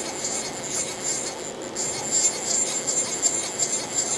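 Mitsubishi RB32 CNC cylindrical grinder running idle in manual mode: a steady machine hiss with a thin, high-pitched whine that wavers in strength.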